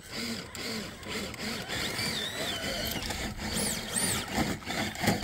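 Electric motor and gearing of an RC rock-crawler truck whining in short throttle bursts, the pitch rising and falling with each burst.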